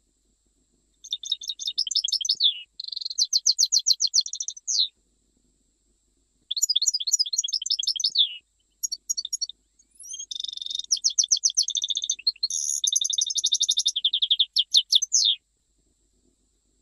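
European goldfinch singing a Jijel-type song: five phrases of fast trills and twittering, broken by short pauses, with the longest phrase running about five seconds near the end.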